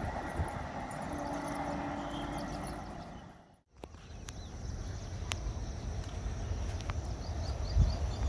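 Outdoor trackside ambience with a low, uneven rumble of wind on a phone microphone and faint scattered ticks and chirps, plus a steady low tone for about a second and a half near the start. The sound drops out completely for a moment about a third of the way in.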